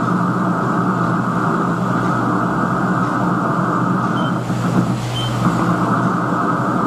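A radio receiver gives out steady static hiss and crackle over a low hum: the crackling and cracking of lightning discharges picked up from a nearby thunderstorm.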